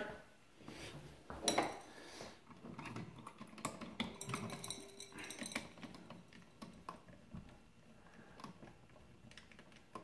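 Faint scattered clicks and rattles of a new light switch and its copper wires being handled at a plastic junction box, with one louder click about a second and a half in.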